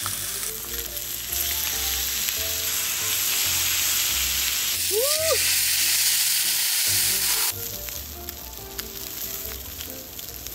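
Meat sizzling on a square griddle pan over a portable butane gas stove: pork slices, then a thick T-bone steak. The sizzle drops quieter about seven and a half seconds in.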